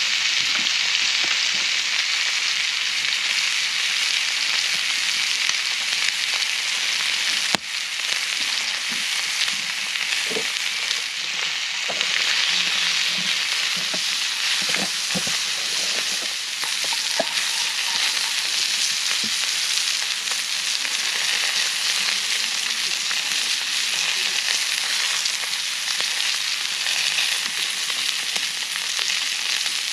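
Meat sizzling steadily in a cast-iron skillet over a campfire.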